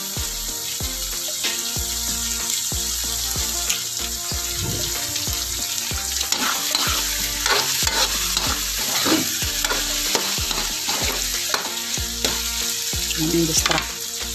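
Sliced cheese dogs sizzling in hot oil in a metal wok, being toasted brown, while a spatula stirs them with irregular clicks and scrapes against the pan.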